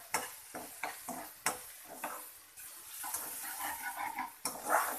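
Chicken, peas and potato sizzling in hot oil in a non-stick wok while a slotted metal spatula stir-fries them, with repeated scrapes and taps of the spatula against the pan.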